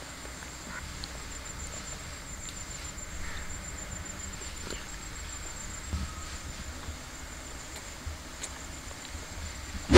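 Quiet outdoor ambience with a steady high-pitched insect trill, under soft chewing and small clicks of eating by hand.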